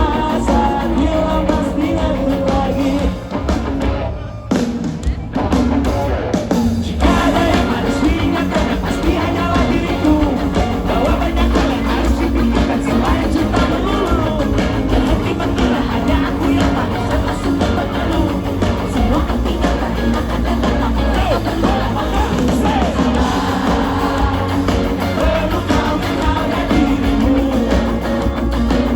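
Live band playing a song with a singer, loud and full. About four seconds in, the low end drops away for a couple of seconds before the whole band comes back in.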